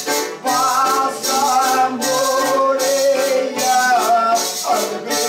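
Group of men singing a folk song together in phrases, with a small guitar strummed and a small metal hand percussion instrument shaken in a steady rhythm.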